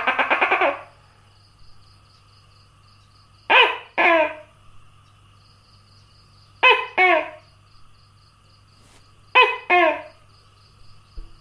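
Tokay gecko calling: a rapid rattling trill at the start, then three two-syllable "to-kay" calls about three seconds apart, each note dropping in pitch.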